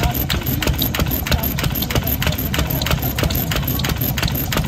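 Old single-cylinder Japanese stationary farm engine (hatsudoki) running steadily at idle, its exhaust beating evenly at about five strokes a second.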